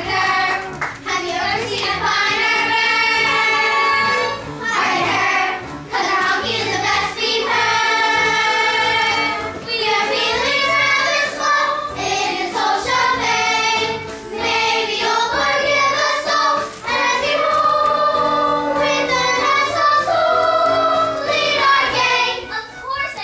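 Children singing a musical-theatre number with musical accompaniment, in phrases of long held notes.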